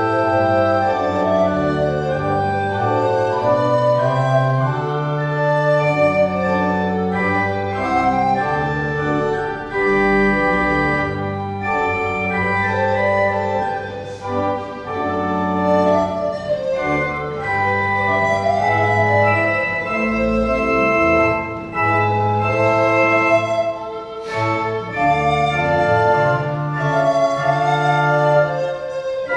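Church organ playing slow, sustained chords over a deep held bass, the harmony changing every second or so, with short breaks between phrases.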